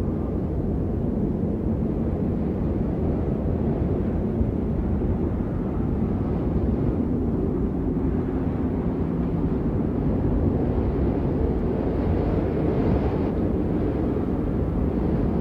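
Steady wind rushing with a deep rumble, swelling in gusts about twelve seconds in and again near the end.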